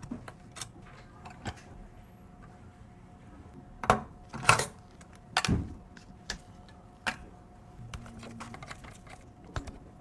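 Small clicks, taps and knocks of computer parts being handled and fitted during a PC build, with a few louder knocks near the middle.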